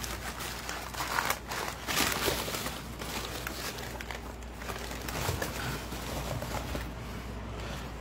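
Packing material crinkling and rustling as a heavy machine is pulled out of its shipping box, in irregular handfuls.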